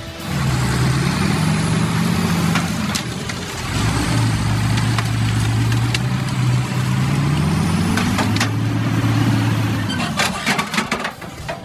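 Heavy vehicle engine running hard, its pitch shifting up and down and dipping briefly about a third of the way in. A cluster of sharp knocks and clatter comes near the end.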